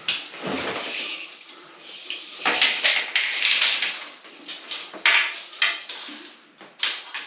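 Steel tape measure being pulled out and held along the top of a wall, the metal blade rattling and scraping in irregular bursts, with a few sharp clicks.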